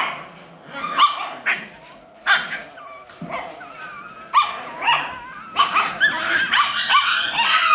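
Alaskan Klee Kai puppies yipping and barking in high, short calls. The calls are spaced out at first and come thick and fast near the end, some with a wavering, whiny pitch.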